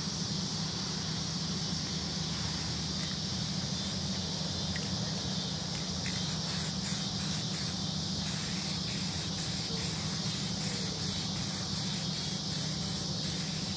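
Aerosol spray-paint can spraying in many short bursts onto a car roof, starting about two seconds in. Underneath runs a steady background hiss and a low hum.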